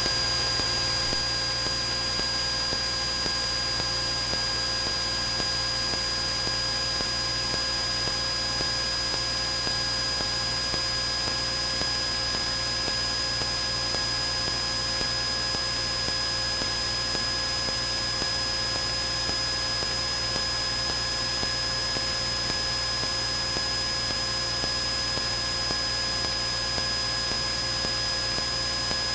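Steady in-flight cockpit noise of a Cessna 172N, an even hiss with a faint high, steady whine and a few lower steady tones, unchanging throughout.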